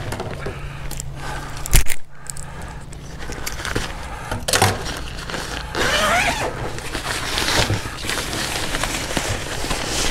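Rustling and handling of a nylon tent carry bag, with a sharp knock about two seconds in. A steady low hum runs underneath.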